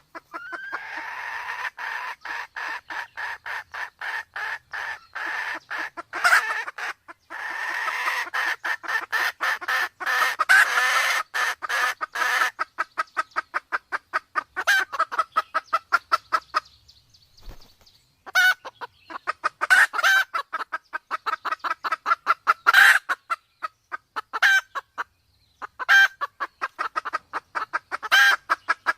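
Red junglefowl clucking in long, fast runs of about five calls a second, with a short break about two-thirds through and louder sharp calls now and then. These are calls of a hen in breeding condition, used to lure wild junglefowl.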